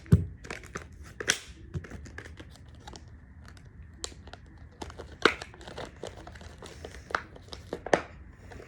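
Packaging crinkling and tearing as a toy is unwrapped, in irregular rustles with a few sharper snaps. A low thump comes just after the start.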